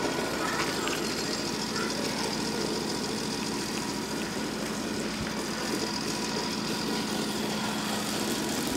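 A steady mechanical hum, like an engine running, with a constant low tone under an even hiss.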